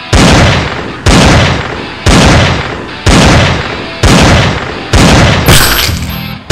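Gunshot sound effects in a western shootout: six loud shots about a second apart, each ringing out and fading before the next, with another shot right at the end.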